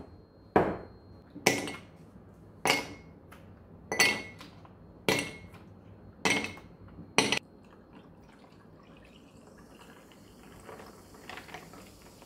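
Ice cubes dropped one at a time into an empty ceramic mug, a sharp clack with a short ring about once a second, seven in all. Near the end, dark soda is poured over the ice, a faint splash and fizz.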